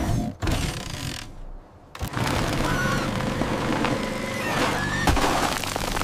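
Cartoon sound effects of a winch straining under load, then concrete cracking and breaking apart as the stuck cement mixer is pulled loose. The sound drops briefly about a second and a half in.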